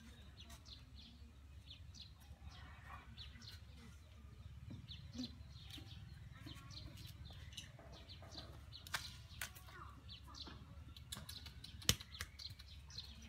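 Farmyard background: small birds chirping in short, scattered high notes over a low steady rumble, with one sharp knock near the end.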